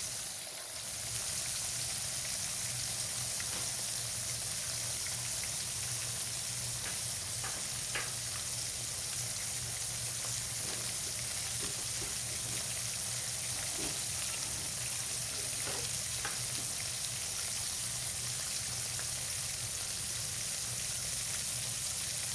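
Flour-dredged turkey cutlets frying in grapeseed oil in a skillet: a steady sizzle with a few small scattered pops, over a low steady hum.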